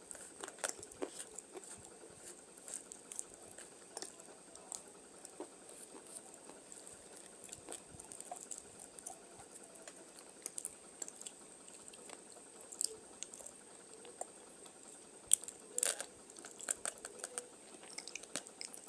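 Brittle brown chunks crushed and crumbled by hand against a hard surface, with many small sharp crackles and snaps. The loudest crunches come in a cluster about three-quarters of the way through.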